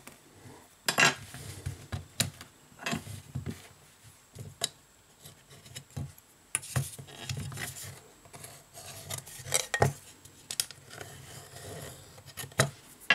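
Metal hand tool scraping and tapping on the bare frame of a Samsung Galaxy J7 (2016) smartphone, in irregular short scrapes and clicks, as the surface under the display is cleaned.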